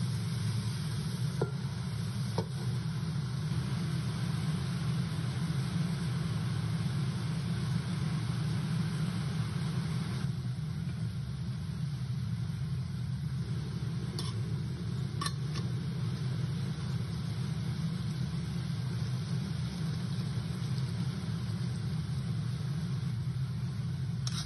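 Pork frying in a wok with a steady sizzle over a constant low hum, and two light metal clinks from the pan lid in the first few seconds. About ten seconds in the sizzle stops suddenly, leaving the low hum and a few sharp metal taps as the pork simmers in broth.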